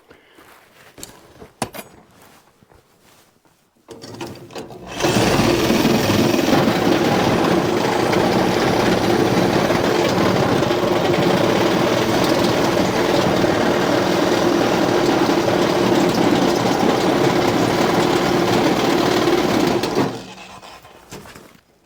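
A power saw cutting through the shop wall: it starts about four seconds in, runs steadily and loudly for about fifteen seconds, then winds down near the end. A few faint handling clicks come before it.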